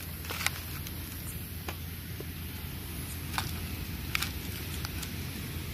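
Live crabs being handled: a few sharp clicks and knocks of hard shells and claws against each other, the loudest about half a second in, over a steady low background noise.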